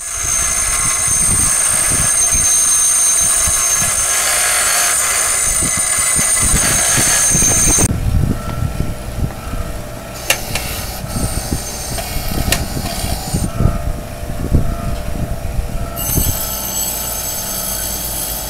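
Bench grinder wheel grinding a welded steel driveshaft end, a loud, steady high grinding screech as the weld is ground down. For several seconds in the middle the screech eases and scattered knocks come through, then it returns near the end.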